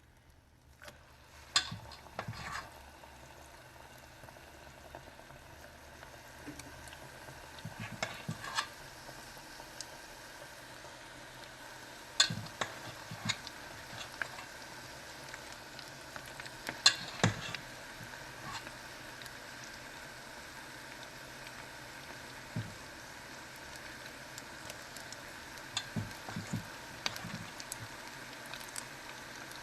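Hush puppy batter frying in hot oil, a steady sizzle that starts about a second in. Sharp clicks and taps break in now and then.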